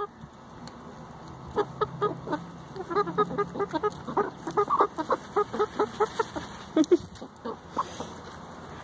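Hens clucking in a quick run of short calls, busiest through the middle and thinning out near the end.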